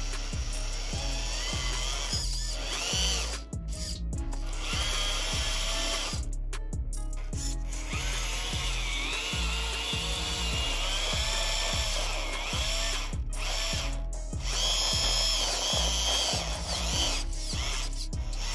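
Electric gear motors of an RC model tractor whining under load as its tyres spin and dig into loose sand while it drags a disc harrow. The pitch wavers with the load, and the whine cuts out briefly a few times.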